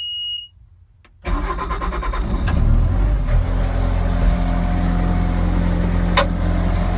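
A steady electronic beep ends about half a second in. A little over a second in, the Bobcat S530's 49 hp turbocharged Doosan diesel cranks, catches and settles into a steady run.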